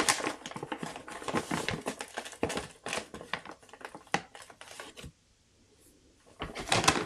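Plastic bag of Espoma organic potting mix crinkling and rustling as soil is scooped out and tipped into a pot, a dense run of crackly clicks. It stops for about a second some five seconds in, then starts again near the end.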